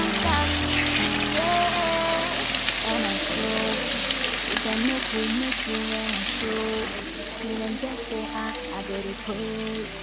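Red stew sauce sizzling in a nonstick frying pan while it is stirred with a spatula. The sizzle eases about two-thirds of the way through. Background music plays over it.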